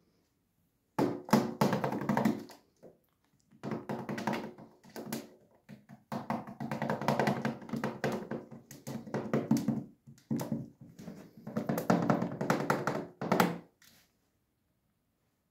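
Fingers tapping rapidly on a hollow plastic container lid, in about five runs of one to four seconds each, with a ringing, drum-like tone.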